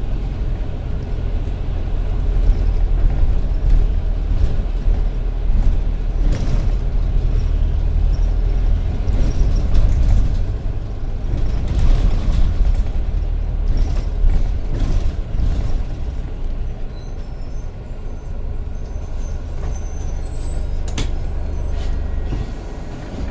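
Bus engine and road rumble heard from inside the bus while it drives, steady and low, rising and falling, with occasional brief knocks and rattles.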